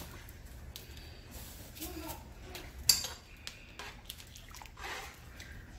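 Metal spoon stirring seasoned water in a metal pot, scraping and clinking against the pot's side, with one sharp clink about three seconds in.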